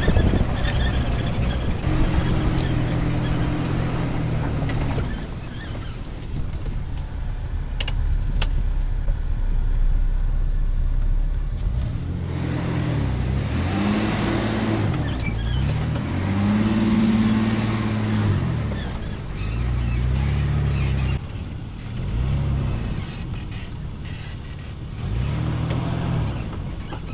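Ford Explorer Sport Trac's engine pulling the truck over a rough dirt track, its note rising and falling again and again as the throttle is worked, with tyre and wind rumble on a microphone mounted outside on the truck's body and a few sharp ticks from debris.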